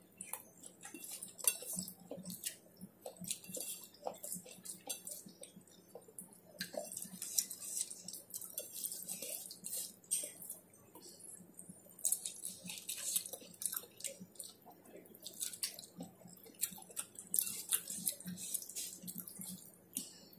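Close-up eating by hand: chewing with irregular clicks and crackles, and fingers scraping food across a stainless steel plate.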